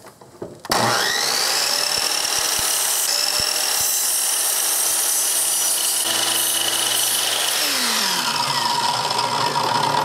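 Chicago Electric miter saw motor whining up to speed about a second in, then running steadily as its blade cuts through a plastic queen excluder. Over the last couple of seconds it winds down with a falling pitch.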